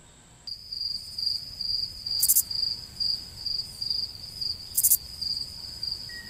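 Crickets chirping: a steady, evenly pulsing high chirp that starts about half a second in, with two brief louder buzzes about two and five seconds in.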